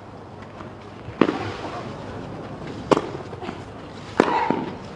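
Tennis ball struck with racquets in a baseline rally: three sharp hits about a second and a half apart, the last followed by a short cry from the hitting player.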